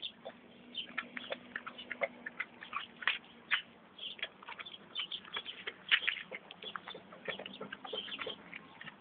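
American Staffordshire terrier puppy at play, making a run of irregular light clicks and taps, several a second.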